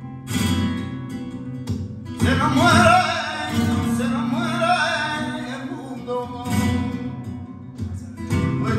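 Live flamenco music: flamenco guitar strumming, joined about two seconds in by a male singer's long, wavering cante line, which eases off and comes back near the end.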